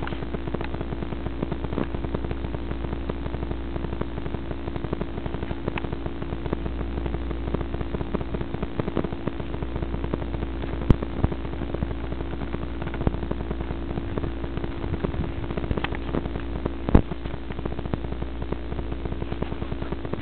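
Briggs & Stratton 18 hp twin-cylinder riding-mower engine running steadily at a constant speed, with a fast even patter of exhaust pulses. Two sharper clicks stand out, one about eleven seconds in and one about seventeen seconds in.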